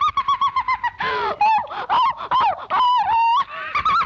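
Popeye's cartoon voice laughing: a fast run of high, clipped cackles at about eight or nine a second. These turn into squeaky chuckles that slide up and down, with one held note near the end.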